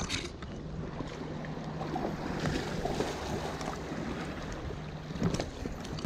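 Small sea waves washing among shoreline rocks, with wind on the microphone and a few short clicks.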